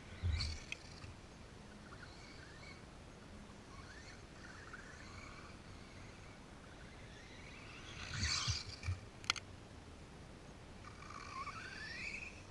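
Faint outdoor ambience with small birds chirping now and then. A dull thump comes just after the start, a couple more follow about eight to nine seconds in, and a single sharp click comes shortly after those.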